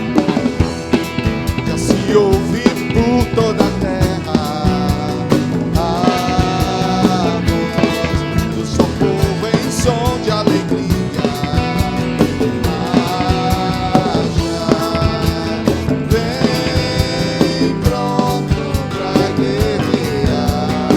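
Band playing an instrumental passage of a Christian rock song: drum kit keeping a steady beat under bass and guitars, with a lead melody line gliding between notes.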